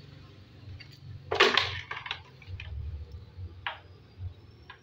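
Objects being handled off-screen: a short clatter about a second and a half in, then a few light clicks.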